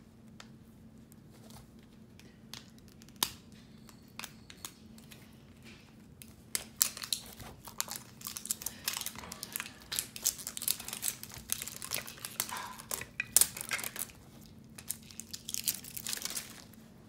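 Crinkly plastic wrapping being peeled and torn off an LOL Surprise Boys ball: a few faint clicks at first, then dense crackling and tearing from about six seconds in, with a short pause before a last burst near the end.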